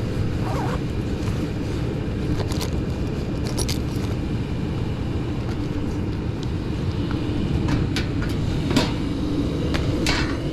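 Gas furnace running with its burners lit: a steady low rumble with a hum that comes up in the second half, and a few light clicks.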